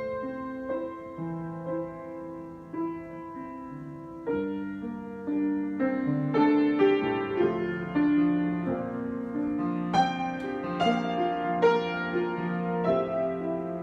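Solo piano improvisation: slow, held notes and chords, growing fuller and louder about four seconds in, with strongly struck chords around ten and eleven seconds in.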